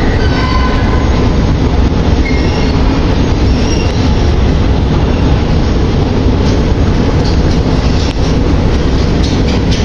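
Moscow metro train running with a steady heavy rumble, brief high-pitched wheel squeals in the first few seconds and sharp clicks near the end.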